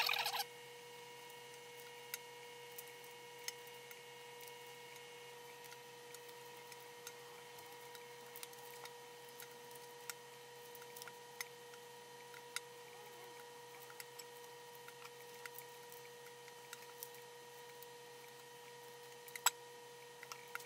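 Faint scattered clicks and crackles of raw, thawed shrimp shells being peeled off by hand, with a brief louder crackle right at the start, over a steady faint electrical hum.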